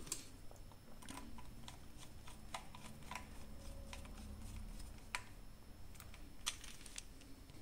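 Faint, irregular small clicks and ticks of a small crosshead screwdriver turning screws back into a plastic tracking-unit housing, with light handling of the case.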